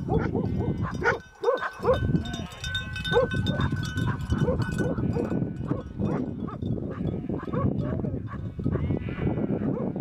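A large flock of sheep bleating, many calls overlapping continuously. A thin, steady high tone sounds for a few seconds, starting about one and a half seconds in.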